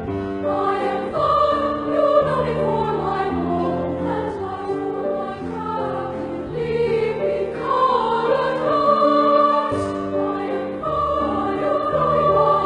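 Background music: a children's choir singing with long held notes over a lower sustained accompaniment.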